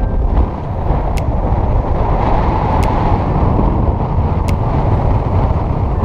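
Strong wind buffeting the microphone at the water's edge: a loud, steady rumble with a rushing hiss of water under it. A faint, sharp tick recurs about every second and a half.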